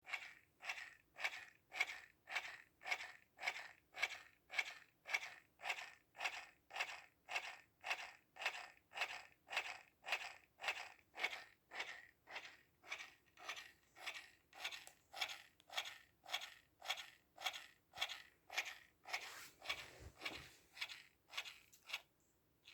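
Air Wick Freshmatic automatic air freshener dispenser making short scratchy ticks, about two a second, in a steady rhythm that stops just before the end, even though the unit is switched off.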